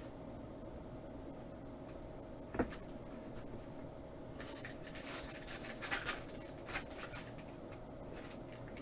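Trading cards being handled: a single tap, then a few seconds of light sliding and rustling with a few clicks.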